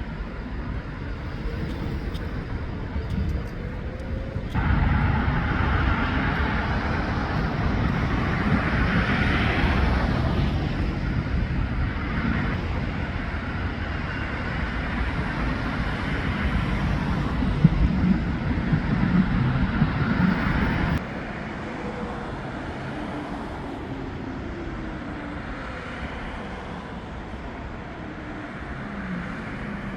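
City street traffic: a steady din of road noise with engines of passing vehicles rising and falling in pitch. The noise steps up suddenly about four seconds in and drops back suddenly about 21 seconds in.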